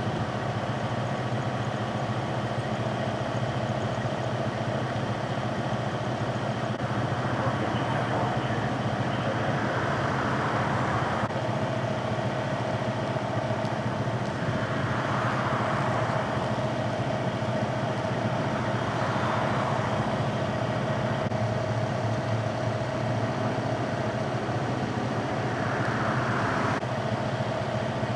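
Steady hum of idling vehicle engines with a constant drone, broken by brief swells of rushing noise about 9, 15, 19 and 26 seconds in.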